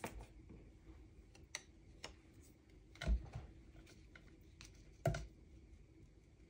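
Light taps and clicks of fingers and cardstock on a glass crafting mat as glued paper pieces are pressed down, with two louder knocks about three and five seconds in.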